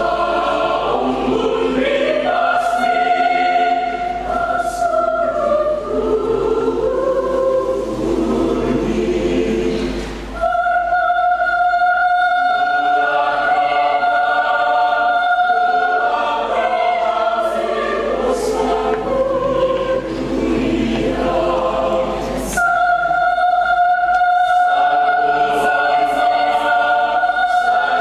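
Church choir singing in parts, voices moving through phrases and then holding long sustained chords, with a short break for breath about ten seconds in and again about twenty-two seconds in.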